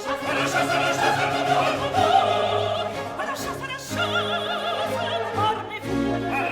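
Baroque opera music: a high voice singing sustained notes with wide vibrato over a period-instrument orchestra, with a brief break about three and a half seconds in.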